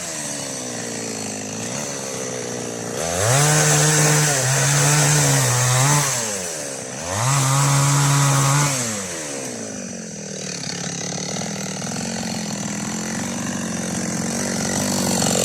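Preco two-stroke chainsaw with an 18-inch bar, dropping to a low run and then revving up twice for a few seconds each, before settling lower and slowly picking up speed again near the end.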